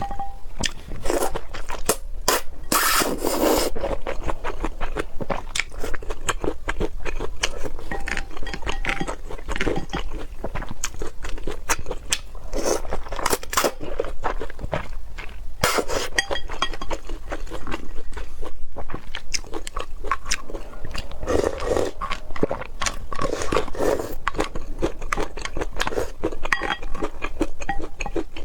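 Close-miked person chewing and crunching food: a dense run of small wet clicks and crunches, with a few louder crunchy bites.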